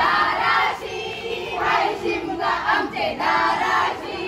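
A group of women singing a traditional Holi folk song together in chorus, in phrases of about a second with short breaks between them.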